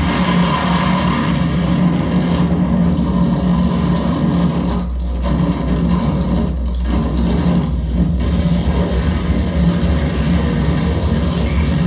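Live electronic noise music played on a table of effects units and a mixer through the room's speakers: a loud, dense, unbroken wall of noise over a steady low hum. Around the middle the top hiss briefly drops away while a deeper rumble swells, then the full noise returns.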